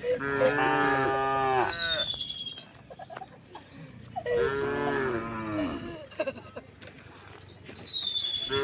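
Cows mooing: three long, drawn-out moos, the third starting near the end, with birds chirping in the background.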